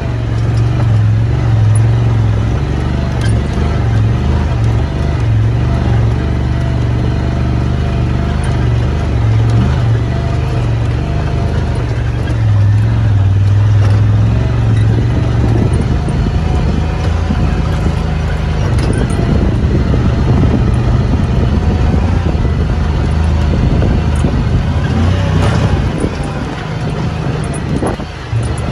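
Side-by-side UTV engine running at low, steady revs while crawling up a rocky trail. From about halfway through, the chassis bumps and rattles over the stones.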